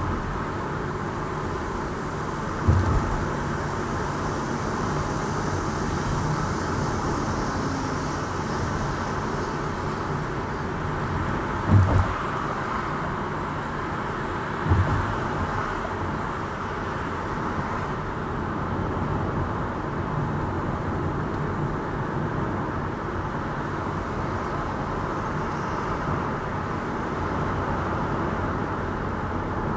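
Steady road noise and engine hum of a moving car, picked up inside the cabin by a dashboard camera. Three short thumps stand out, about 3, 12 and 15 seconds in.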